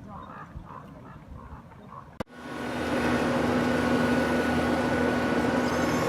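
A few faint short calls over quiet background, then about two seconds in a sharp click and a sudden switch to the loud, steady rush of a car driving on rough road, with a steady hum running under it.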